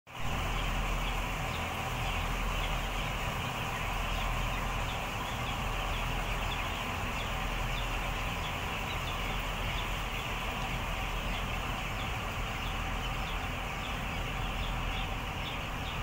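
A large flock of young broiler chickens calling all at once, a dense steady chatter of many overlapping peeps, over a low steady hum.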